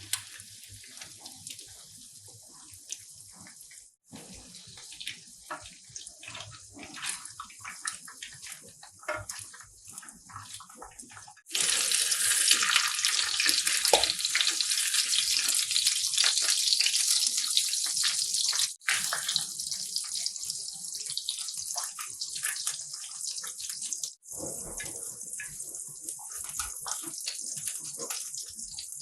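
Water running from a tap, with small clicks and knocks throughout. The flow is heavier and louder in the middle stretch, then lighter again.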